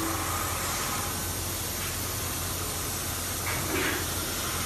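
Five-axis CNC profile machining center running while machining aluminium profiles: a steady hiss over a low hum, with a brief swell in the sound a little after three and a half seconds.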